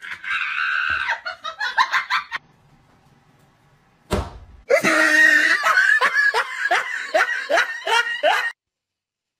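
Hard human laughter in fast, pulsing bursts, broken by a short lull and a single thud about four seconds in, then laughing again until it cuts off abruptly near the end.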